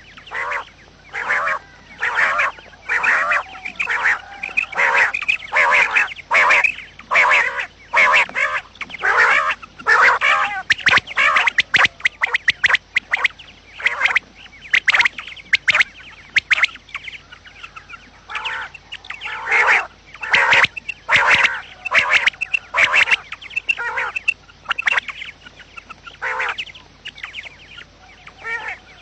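Quail calling over and over: short, harsh notes repeated about twice a second, thinning out briefly about two-thirds of the way through.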